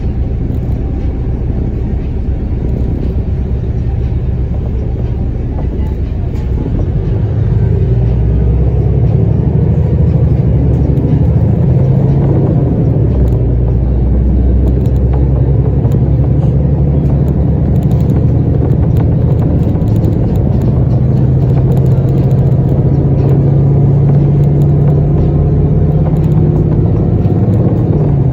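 Road and engine noise heard from inside a moving vehicle: a steady low rumble that grows a little louder about eight seconds in.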